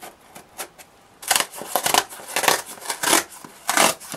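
Packing tape on a cardboard box being cut with scissors and torn off in about five short tearing strokes, starting a little over a second in.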